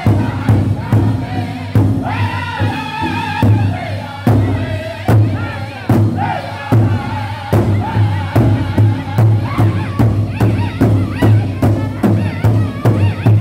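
Powwow drum group singing an intertribal song in unison in high-pitched voices over a large powwow drum. The drum is struck together by all the singers in a steady, even beat.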